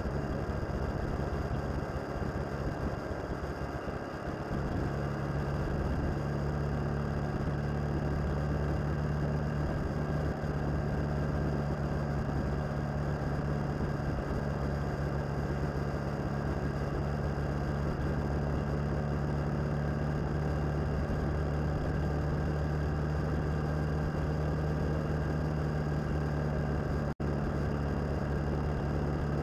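Suzuki DL650 V-Strom's V-twin engine running at a steady cruising speed, with wind and road noise. The sound drops out for a split second near the end.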